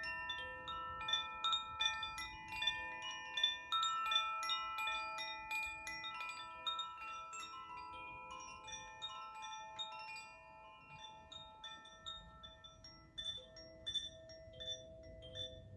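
Koshi chimes being swayed, their tuned rods struck over and over by the clapper, so a small set of bright ringing notes overlap in a dense shimmer that thins out to sparser, quieter strikes in the second half.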